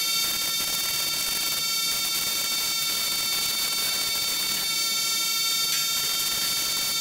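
Compressed-air paint spray gun hissing steadily while it sprays paint.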